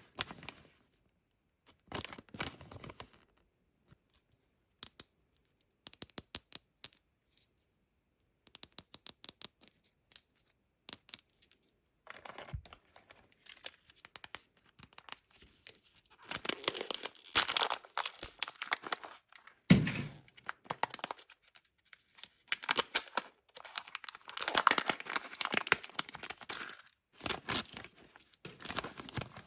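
Foil and plastic wrappers of Kinder Joy surprise eggs being torn open and crinkled by hand, in short bursts with scattered small plastic clicks, building to two longer, louder stretches of tearing. One sharp thump partway through.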